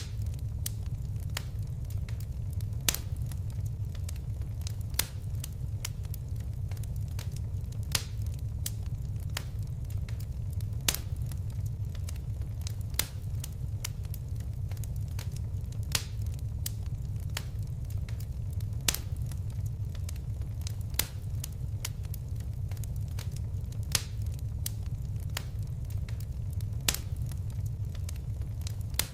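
Crackling fire: a steady low rumble of flames with sharp pops and snaps, a louder pop every few seconds.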